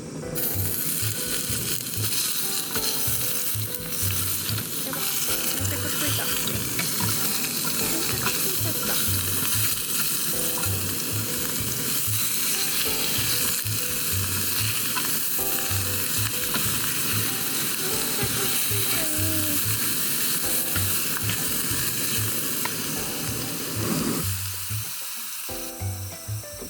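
Food sizzling as it fries in a pan, a dense steady hiss that stops shortly before the end, over background music with a steady beat.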